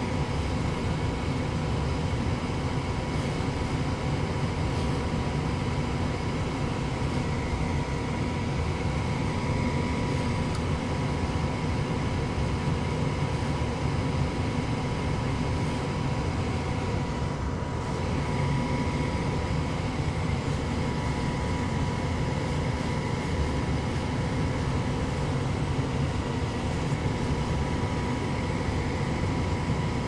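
Gas furnace's combustion air inducer motor running, a steady hum with a few constant tones, as the furnace goes through its start-up cycle before ignition.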